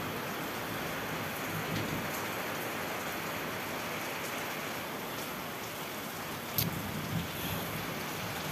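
Steady rain falling, an even hiss, with one sharp click about two-thirds of the way through.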